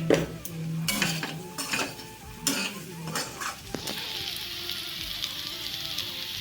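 A metal spatula clinking and scraping against the cooking pot as jackfruit curry is stirred, then from about four seconds in a steady sizzle from the hot pan.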